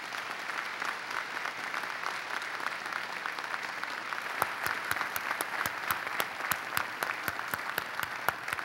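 Audience applauding steadily. From about halfway in, individual sharper claps stand out above the general clapping.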